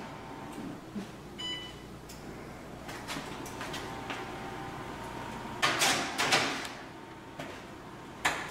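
Oven loading: a baking tray scrapes as it slides onto the metal oven rack, then the oven door shuts with a knock near the end.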